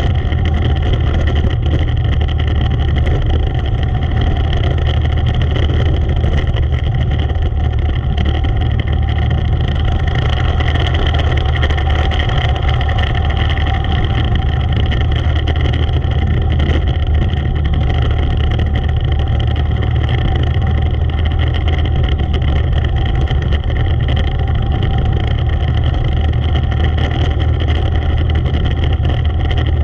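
Engine of a Predator 400 class race car running at racing pace, a loud constant drone that holds nearly steady in pitch and level throughout.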